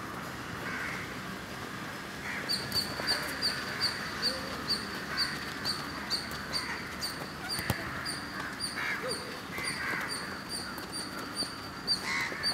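A bird repeating a short, high chirp about three times a second, starting a couple of seconds in, with crows cawing now and then. There is one sharp knock of a football being kicked.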